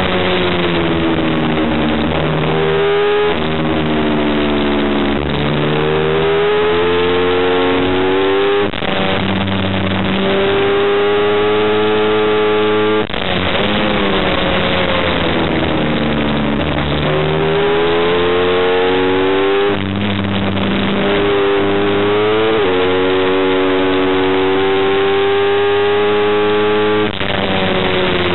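Motorcycle engine recorded onboard at racing pace: the revs climb again and again, stepping down at gear changes and falling away into corners before picking up again.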